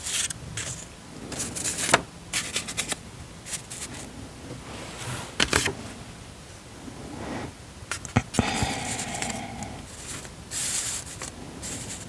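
Paper being handled: rustling pages with scrapes and several sharp clicks, the loudest about two seconds in and again about eight seconds in.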